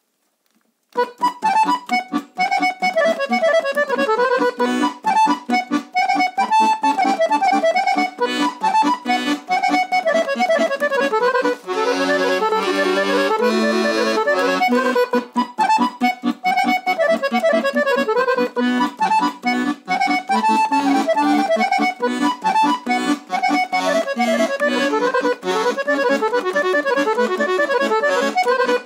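Guerrini piano accordion played solo in B minor: quick runs of right-hand melody over left-hand bass-button accompaniment, starting about a second in. Around the middle the melody gives way briefly to held chords before the fast runs return.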